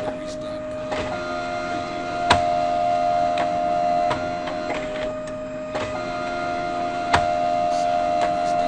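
Xerox photocopier running: a steady machine hum with a held tone, broken by sharp mechanical clicks every second or two, two of them louder than the rest.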